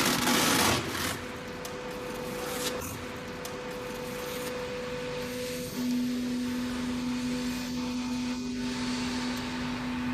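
Hydraulic power unit of a tyre-cutting machine running with a steady machine hum, after a loud harsh burst of noise in the first second. About six seconds in, the hum's low tone steps up and stays louder.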